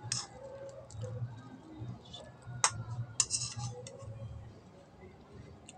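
Metal spoon tapping and scraping on dishes while eating rice, with two sharp clinks about half a second apart near the middle.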